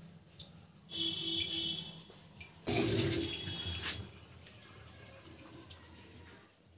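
Water running briefly, like a tap, in two spurts: about a second in and again about three seconds in.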